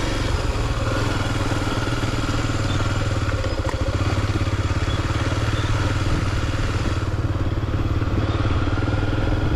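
Motorcycle engine running steadily at low, even revs.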